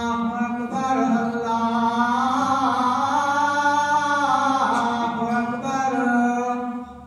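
A man's voice chanting a prayer through the mosque's microphone and loudspeakers, in long, slowly bending melodic phrases that fade out just before the end.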